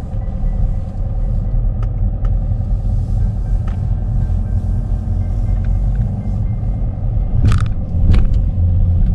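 Car driving slowly, a steady low rumble of road and engine noise heard from inside the cabin. Near the end come two sharp clunks about half a second apart as the wheels cross onto the ferry's loading ramp.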